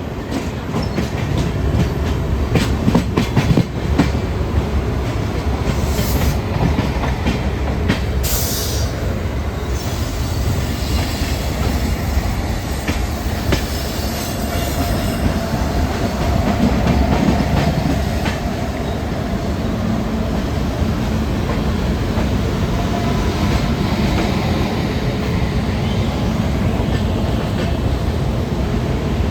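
Intercity express train running along the track: a steady rumble of wheels on rails, with sharp clacks from rail joints, most of them in the first few seconds.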